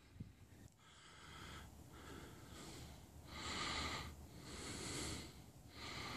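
A person's breathing close to the microphone, faint, about five breaths roughly a second apart.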